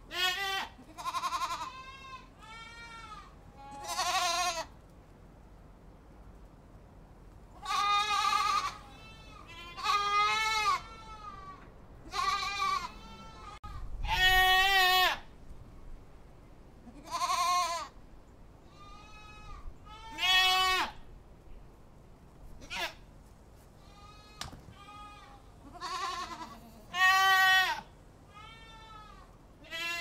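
Goats bleating over and over, a call every second or two, some loud and close and others fainter and farther off, each bleat short with a wavering pitch.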